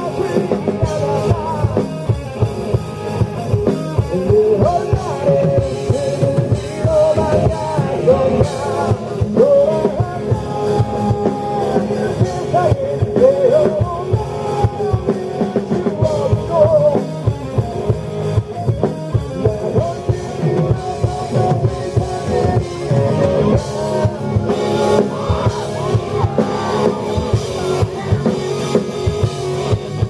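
Live rock band: a male vocalist singing over electric guitar and a drum kit.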